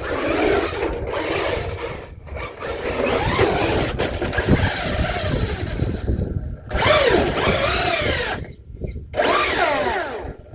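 Traxxas Hoss electric RC monster truck's motor whining up and down in pitch as it spins its wheels on ice, in several bursts of throttle with brief breaks between them.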